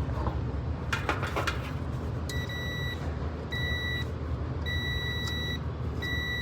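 Multimeter continuity beeps, four of uneven length starting about two seconds in, as the probes touch the compressor terminals and ground. A beep to ground is the sign of a grounded, shorted compressor. A few clicks come about a second in, over a steady low rumble.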